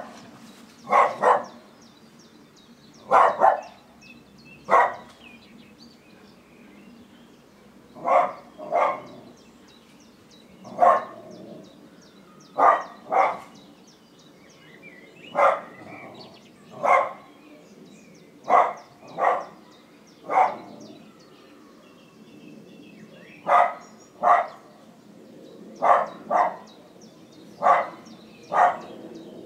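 A dog barking over and over: short, sharp barks, singly or in quick pairs, a second or a few seconds apart.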